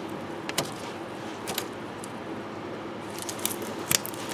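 A few scattered sharp clicks and taps of a wrench working the just-loosened flare nut of a power steering line off the steering rack, the loudest one near the end.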